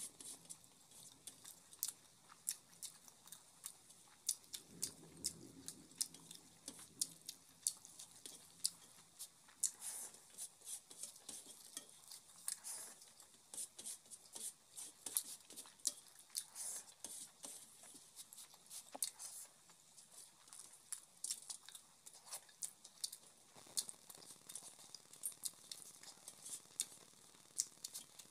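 Eating rice by hand from a stainless steel plate: a steady run of small, irregular wet clicks from chewing and from fingers gathering curry-mixed rice on the plate.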